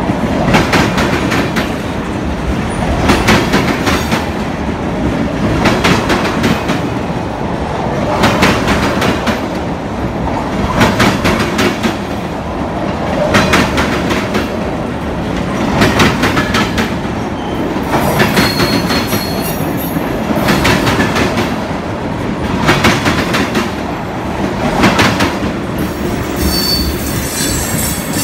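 Railroad tank cars of an oil train rolling past. The wheels clack over the rails in a cluster about every two seconds over a steady rumble. Brief high-pitched wheel squeals come in a little past halfway and again near the end.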